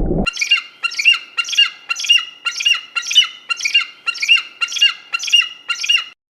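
An animal's short calls repeated evenly about twice a second, a dozen in all.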